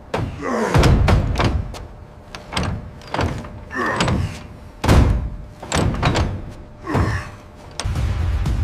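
Pneumatic impact wrench run on heavy steel bolts in short bursts, about eight of them, each starting with a sharp clank and then falling away in pitch.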